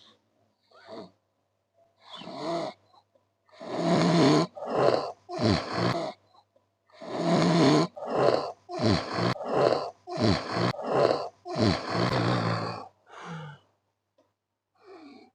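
A man snoring loudly and harshly: a fast run of rasping snorts, roughly one a second, some dropping in pitch, beginning about two seconds in and dying away near the end.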